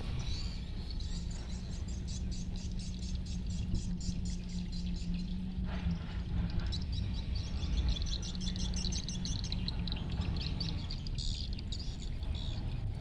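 Rapid, evenly repeated high-pitched chirping from small wild creatures, denser for a few seconds in the middle, over a steady low hum that stops about eleven seconds in.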